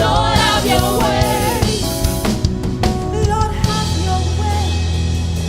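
Live gospel worship band music with drum kit and bass. Sliding, wavering melodic runs fill the first half, and a held low bass note sets in about two-thirds of the way through.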